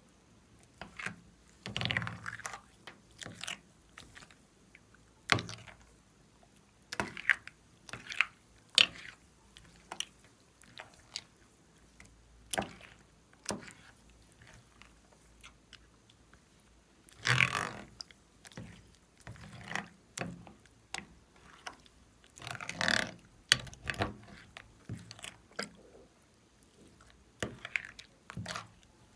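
Slime being handled and mixed by hand: irregular sticky clicks, pops and squishes, with a few longer, louder squelching bursts.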